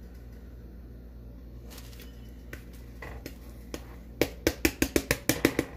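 Spatula knocking and scraping against a cast-iron skillet while working under a quesadilla: a rapid run of sharp taps, about four or five a second, starting about four seconds in, over a low steady hum.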